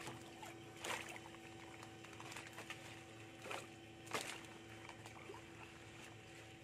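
A pole and dip net sloshing through shallow canal water among water hyacinth, with brief splashes about one second, three and a half seconds and four seconds in, over a faint steady hum.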